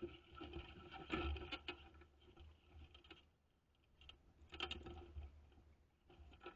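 Faint rustling and crunching steps on dry brush and gravel, coming in irregular bursts, with a quiet gap partway through.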